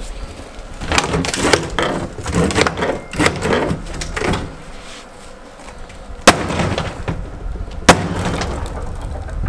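Sledgehammer striking a boat's cut-up deck during demolition: first a stretch of crunching and cracking of broken deck material, then two sharp blows about six and eight seconds in, the loudest sounds.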